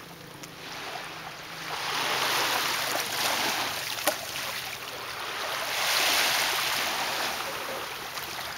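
Shallow seawater washing and splashing, swelling in two slow surges, with one sharp click about four seconds in.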